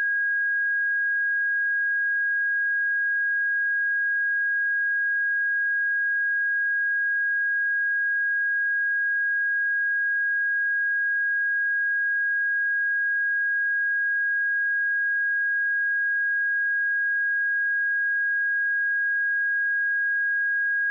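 Pure 1638 Hz sine-wave test tone, a single steady high-pitched note held without change at constant volume.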